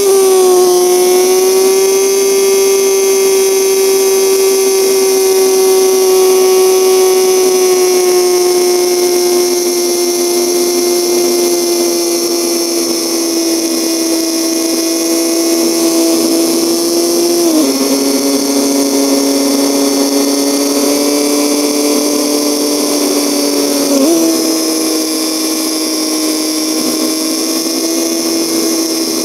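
The 1973 BMW R75/5 motorcycle with sidecar runs at road speed with a steady engine whine whose pitch sinks slowly. About two-thirds of the way through the pitch drops suddenly, and about six seconds later it jumps back up.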